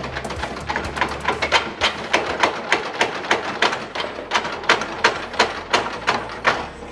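Hammer blows on steel body panel, about three or four sharp metal strikes a second: chiseling the pinch-welded plates off a car's rear body.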